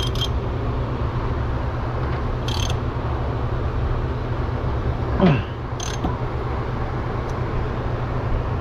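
Lock-nut spanner wrenches working the inner and outer rear axle lock nuts of a Honda 400EX ATV against each other: a few light metal clicks and one short falling squeak about five seconds in, over a steady low hum.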